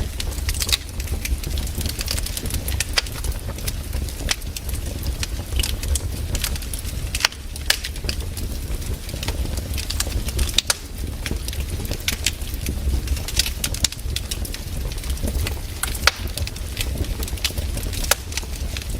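Wood campfire burning, with frequent irregular sharp crackles and pops over a steady low rumble of the flames.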